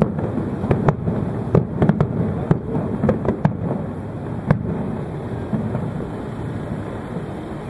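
Fireworks shells bursting in a rapid volley: many sharp bangs over a continuous rumbling crackle, thinning out after about four and a half seconds.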